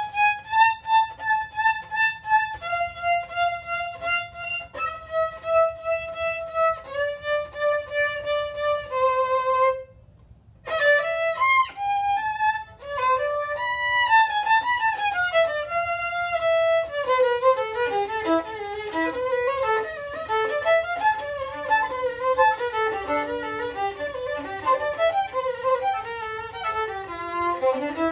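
Solo violin playing. A slow line of repeated bow strokes steps down in pitch every two seconds or so, stops briefly about ten seconds in, then gives way to quick running passages, ending in a rising run.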